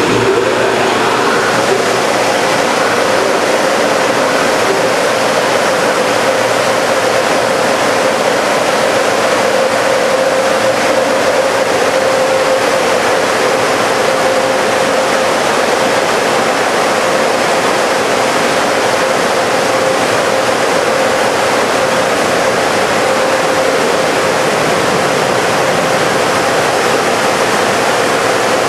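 Steady rush of water spraying from the nozzle arches of an automated touchless truck wash onto a truck, with a faint steady whine of machinery underneath.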